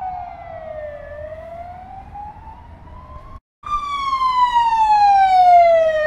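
Hungarian police car siren wailing: a slow tone glides down, climbs back up, cuts out briefly about three and a half seconds in, then returns louder and falls again.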